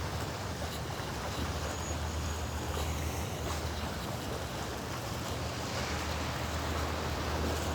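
Sea waves washing in, with steady wind rumbling on the microphone.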